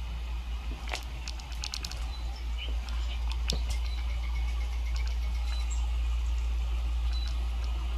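Nature sound effect of birdsong played through a small speaker: scattered short chirps and clicks over a steady hiss and low rumble, a little louder from about three seconds in.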